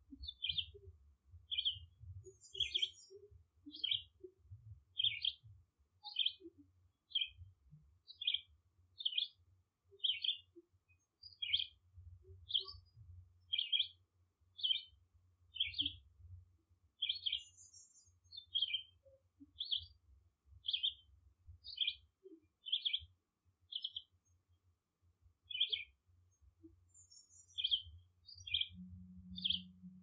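A bird giving short chirps over and over, about one and a half a second, with an occasional higher, thinner note, over a faint low rumble. A brief low hum comes in near the end.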